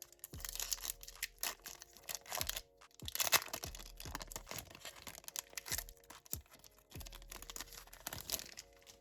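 Foil Pokémon booster pack being torn open and crinkled, a run of sharp crackling tears with the loudest rip about three seconds in.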